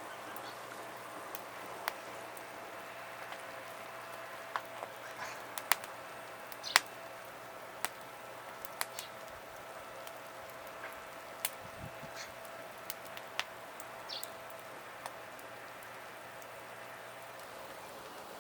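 Small wood campfire crackling: sharp, irregular pops scattered over a steady low hiss.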